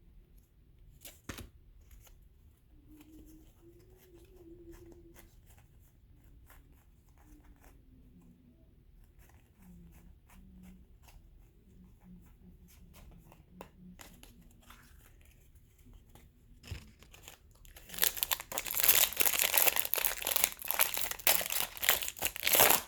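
Faint ticks of cards being handled, then near the end a loud stretch of crinkling and tearing lasting a few seconds as a Topps Series 2 baseball card pack wrapper is ripped open.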